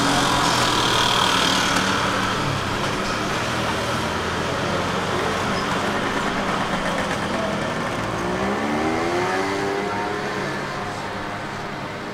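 Street traffic with a motor vehicle's engine running. About eight seconds in, an engine note rises in pitch as a vehicle accelerates, then levels off.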